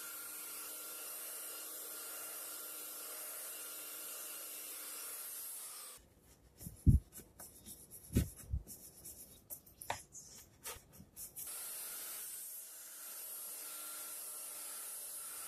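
Makita belt sander running steadily as it sands glued MDF panel edges, then winding down about six seconds in. A wood chisel then scrapes hardened glue off the MDF edge in short scrapes and knocks. About twelve seconds in, the belt sander starts up again and sands on.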